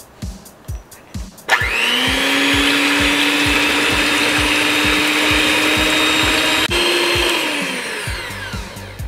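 Electric mixer whisking egg whites for meringue. The motor starts suddenly about a second and a half in and runs with a steady whine. A click comes near the end, then the motor winds down with a falling pitch and stops. Background music with a steady beat plays throughout.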